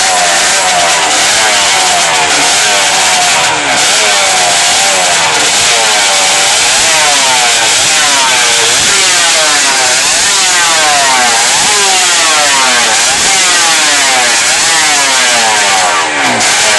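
Montesa 250 racing motorcycle's two-stroke single-cylinder engine running and being blipped, its revs rising and falling over and over, about once a second from around the middle on.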